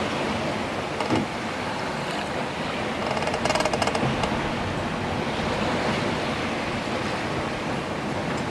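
Steady rush of water and wind aboard a sailing schooner, with a short knock about a second in and a louder surge of rushing noise lasting about a second a little past the middle.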